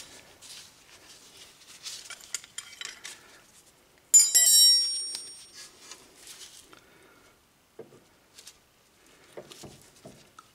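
Scattered light metallic clicks and clinks of tools and brake parts being handled while a rear brake caliper is fitted, with one sharp, ringing metal clank about four seconds in.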